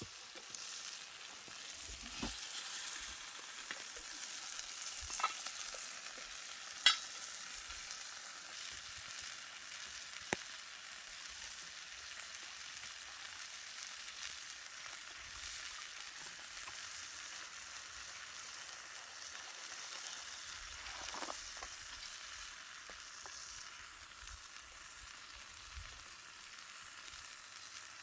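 Food frying and sizzling in a pan, a steady crackling hiss, with a few sharp clicks of a utensil stirring, the loudest about seven seconds in.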